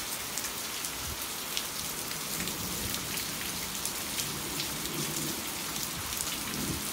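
Steady rain falling in a thunderstorm, with scattered sharp drops splattering close by.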